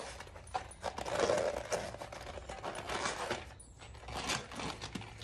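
Hands pushing a rubber inner tube and foam liner into a fat-bike tire and rim: irregular rubbing and scraping of rubber, with a few sharper clicks.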